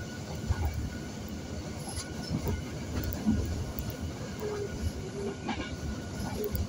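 Passenger train running at speed, heard from inside the carriage: a steady rumble of wheels on the track with a few brief knocks.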